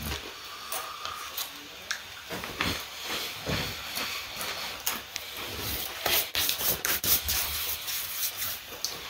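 Crunchy chocolate-dipped biscuit snacks crunching and rustling close to the microphone: an irregular run of crackly clicks and scraping noises.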